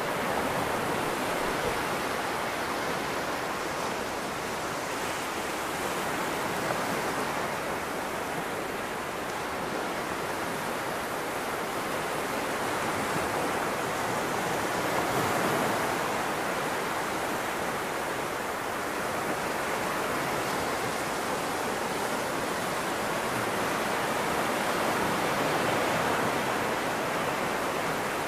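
Small surf on a flat sandy beach: a continuous rush of low waves breaking and their wash running up the sand, swelling slightly about halfway through and again near the end.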